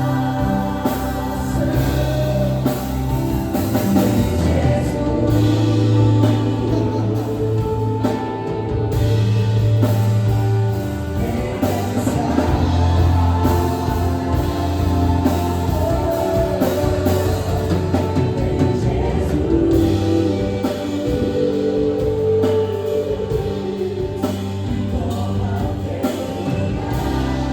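Contemporary gospel worship music: sustained keyboard pads and bass, with sung vocals and a choir.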